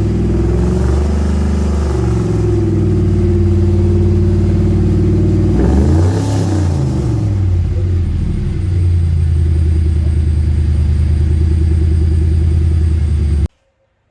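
Car engine idling, revved up and back down twice, near the start and about six seconds in, then cutting off suddenly near the end.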